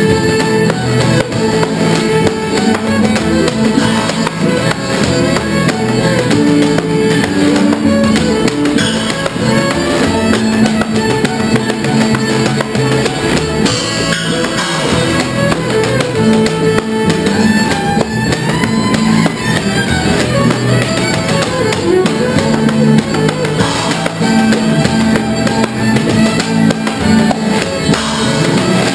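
Acoustic string band playing an instrumental tune: plucked strings and upright bass over a small drum kit with cymbals keeping a steady beat.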